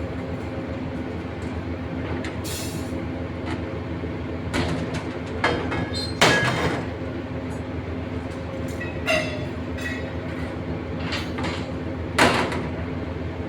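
Machinery running with a steady engine hum, with scattered loud metallic clanks and knocks, the loudest about halfway through and near the end.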